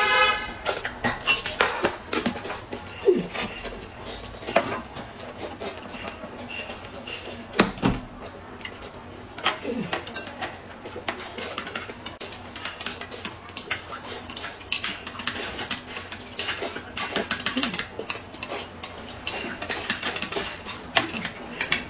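Metal spoons clinking and scraping in glass cups of corn soup and chopsticks knocking on ceramic bowls, many small clinks throughout, mixed with slurping and chewing.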